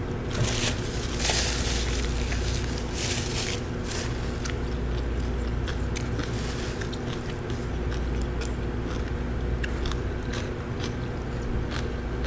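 Close-miked eating sounds: chewing, with scattered clicks of chopsticks and a spoon against plastic takeout containers and a few short rustles in the first few seconds. A steady low hum runs underneath.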